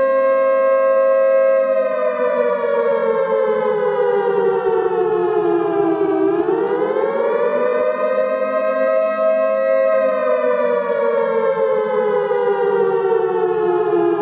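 Outdoor warning siren sounding a wail: a loud two-note tone that holds, slowly falls in pitch, sweeps back up about halfway through, holds again, then falls once more near the end.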